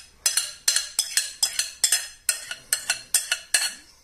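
Metal spoon clinking and scraping against a glass dish as baked beans are spooned out, a quick run of about a dozen sharp clinks that stops just before the end.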